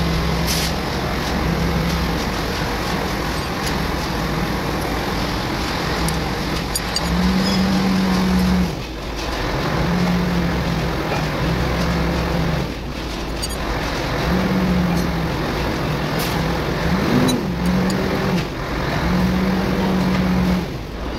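Motor vehicle engine running nearby, a steady noise with a low hum that comes and goes in stretches of one to two seconds. A few light clicks sit on top.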